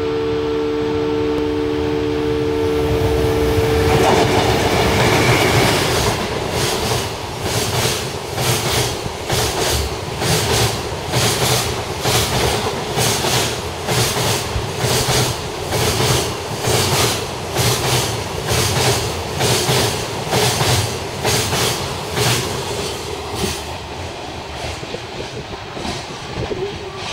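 Express container freight train hauled by an EF510 electric locomotive passing through at speed. A steady chord of tones sounds for the first four seconds or so, then the locomotive rushes past. The container wagons' wheels clatter over the rail joints about once a second and ease off near the end.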